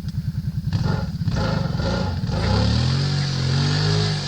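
ATV engine running at a low pulsing idle, then revving up about two and a half seconds in and holding at high revs as the bogged-down quad is driven to pull free.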